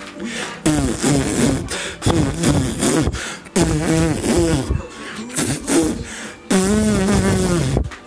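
Wordless singing voice in short, bending phrases, ending with a long held note a little over a second long near the end.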